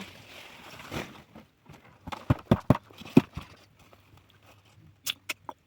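A quick series of loud, sharp knocks about two seconds in, followed near the end by a run of lighter, quicker clicks.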